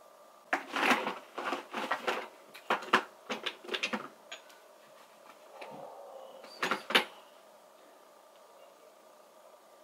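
Skincare bottles and containers being handled, picked up and set down: a quick run of clicks and knocks over the first few seconds, then another sharp knock about seven seconds in.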